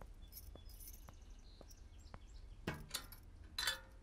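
Soft footsteps about twice a second, then a few louder metallic clinks near the end as keys are worked in the lock of a steel safe.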